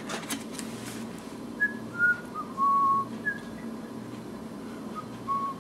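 A person whistling a short tune: a few brief notes stepping downward to one longer held note, then two more short notes near the end.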